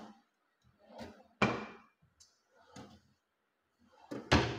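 Modular kitchen cabinets being opened and shut: several sharp thuds with a short ring after each, the loudest near the end.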